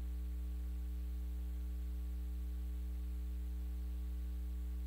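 Steady electrical mains hum, a low drone with a ladder of steady overtones over faint hiss, unchanging throughout.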